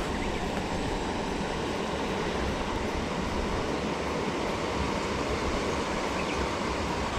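Steady rushing of water spilling over a small weir into a pond, with wind rumbling on the microphone.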